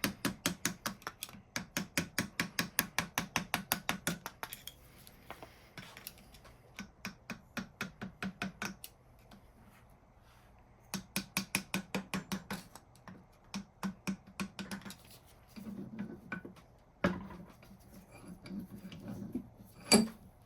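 Rapid light hammer taps on a cast vise part, about six a second, in several runs with short pauses, kept gentle so as not to crack the casting. Two harder single knocks come near the end.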